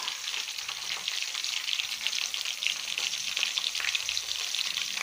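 Chopped tomatoes, onions and crushed garlic sizzling in hot oil in a stainless-steel kadai: a steady hiss full of small rapid crackles.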